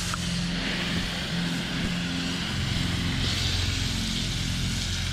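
An engine or motor hums steadily in the background, its pitch shifting a little, over a steady hiss.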